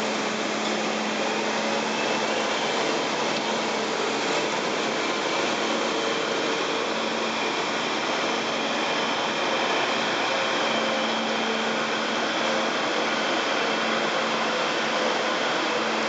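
Bobcat T770 compact track loader's diesel engine running steadily with a faint steady hum, as the machine scoops and carries dirt along a trench.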